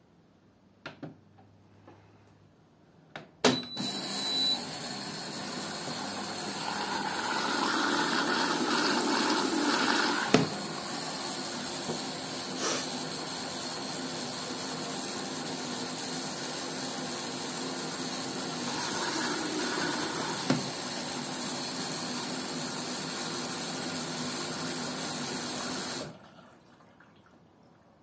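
Hotpoint Ariston front-loading washing machine starting a cycle: a few button clicks and a short beep, then water rushing in steadily as the machine fills, until the inlet valve shuts off suddenly near the end.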